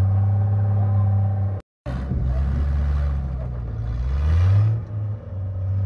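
Rock crawler's engine running and being revved, its pitch rising and falling as the throttle is worked, with a higher rev about four seconds in. The sound cuts out completely for a moment a little over a second and a half in.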